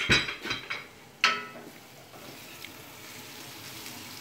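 Kitchenware clatter, a few knocks and then one sharp ringing clank, followed by the soft steady sizzle of chopped onion and garlic frying in oil in a pan.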